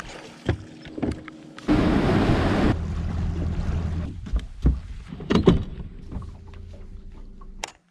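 Bass boat's bow-mounted electric trolling motor humming, with a loud rush of noise lasting about a second near the start and several sharp knocks on the boat deck around the middle.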